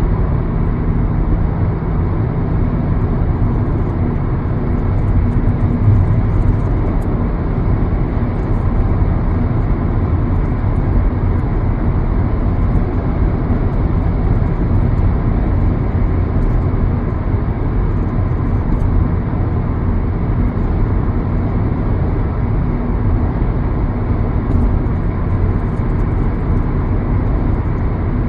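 Steady low rumble of a moving vehicle, with a faint steady hum under it.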